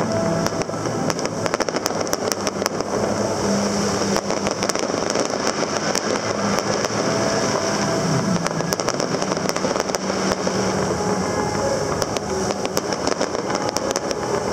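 Fireworks bursting and crackling, many sharp pops throughout, over a steady low engine drone.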